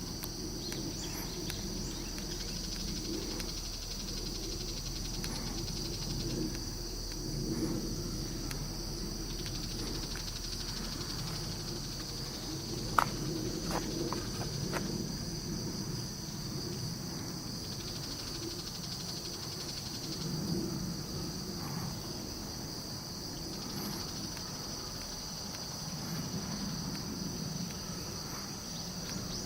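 Steady high-pitched drone of insects chirring, over a low background rumble, with one sharp click about halfway through.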